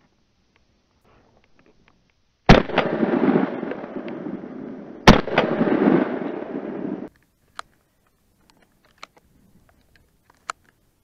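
Two shots from an MP-155 semi-automatic shotgun, about two and a half seconds apart. Each is followed by a long noisy tail of about two seconds, which cuts off suddenly. A few faint clicks come near the end.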